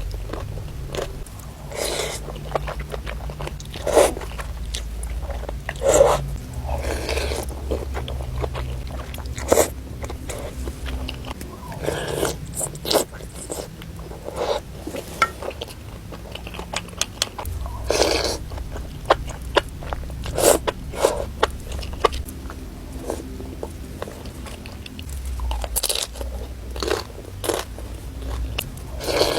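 Close-up mouth sounds of a person eating spicy noodles: chewing and biting, with many short, irregular smacks and crunches.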